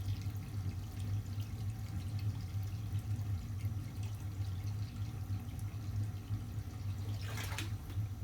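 Water running and dripping from a hose over a steady low hum, with a brief louder hissing gush about seven and a half seconds in.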